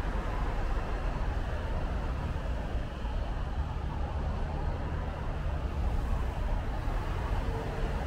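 Steady city traffic noise on rain-wet roads: a continuous low rumble of vehicles with the hiss of tyres, and no single passing vehicle standing out.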